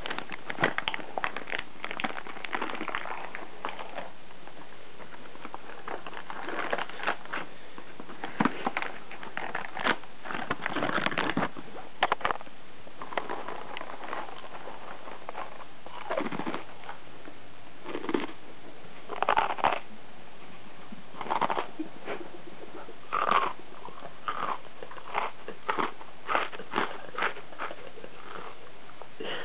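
Froot Loops cereal crunched and chewed by mouthfuls, in irregular bursts of crunching.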